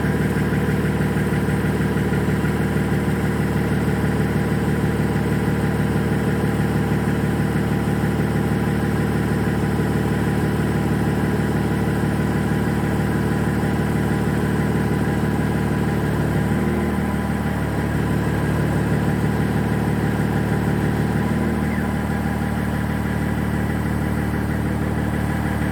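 Diesel engine idling steadily; its note shifts slightly about two-thirds of the way through.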